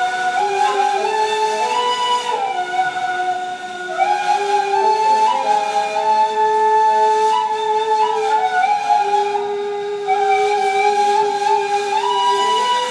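Two neys, the end-blown cane flutes of Ottoman classical music, played together in a slow modal improvisation. Each ney holds long, breathy notes and steps between pitches, one line lower and one higher.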